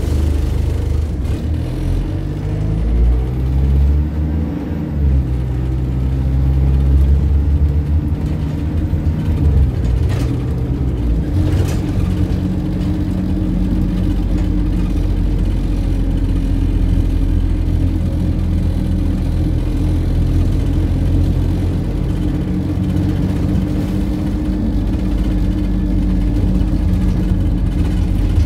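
Dennis Dart single-deck bus engine heard from inside the bus while it drives. The engine note rises and falls through the first ten seconds or so, with a couple of knocks near the end of that stretch, then settles to a steady drone.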